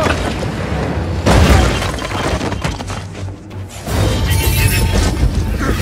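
Action-film soundtrack: dramatic score under crashing impacts and shattering, tumbling debris. A heavy crash comes about a second and a half in, and another surge of rumbling and breaking comes about four seconds in.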